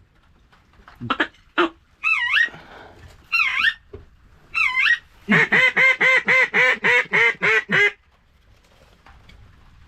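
Duck calls: a few short squealing, wavering whistled notes, then a steady run of about ten evenly spaced quacks, roughly four a second.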